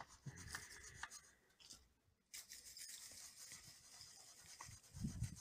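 Straw broom sweeping over a flat stone slab: a faint, steady bristly hiss that starts about two seconds in, after a few light knocks, with a low thump near the end.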